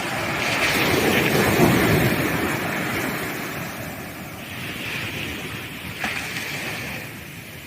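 Sea waves breaking on a sandy beach: a wave crashes and washes up, loudest about one to two seconds in, then fades, followed by smaller surges.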